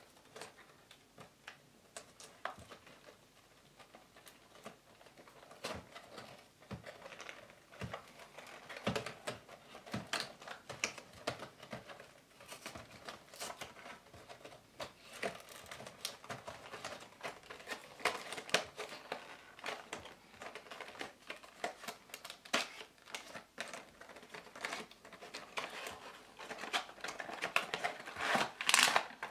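Cardboard gift box being torn open by hand: an irregular run of clicks, scrapes and tearing of the cardboard flaps and tabs, busier after the first several seconds, with the loudest crackling near the end.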